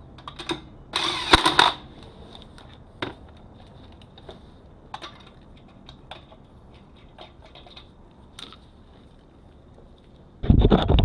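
Cordless drill spinning lug nuts onto the wheel studs in two short runs, about a second in and again near the end. Between them come light metallic clicks and clinks from the lug nuts and socket being handled.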